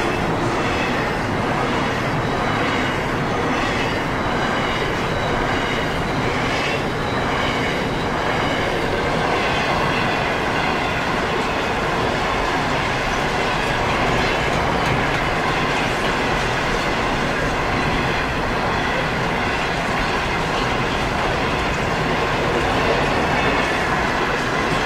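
Container wagons of a long freight train rolling past: the steady noise of steel wheels on rail, with faint high ringing tones over it.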